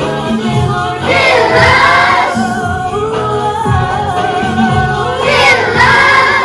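Children's choir singing long, wavering notes over a backing track with a steady bass and drum pulse.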